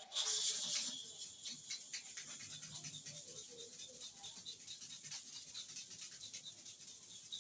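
Hair-clipper blade rubbed back and forth on a sharpening stone in quick, even strokes, a gritty metal-on-stone scraping. It is louder for about the first second, then settles into a steady rhythm.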